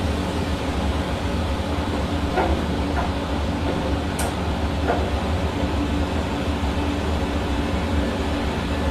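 Hair dryer running steadily: a constant rush of air over an even motor hum, with a few faint ticks.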